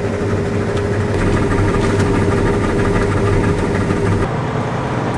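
A vehicle engine running steadily with a low rumble, heard from inside the cab. A steady hum over it cuts out about four seconds in.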